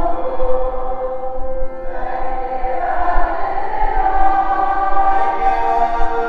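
A group of people singing a Christmas hymn together in unison, accompanied by accordion and acoustic guitar, with long held notes.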